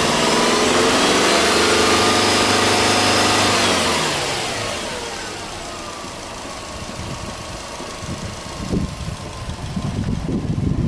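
Subaru Legacy Touring Wagon 2.0GT's turbocharged flat-four engine held at raised revs in a free rev, then dropping back gradually to idle about four seconds in. Wind buffets the microphone near the end.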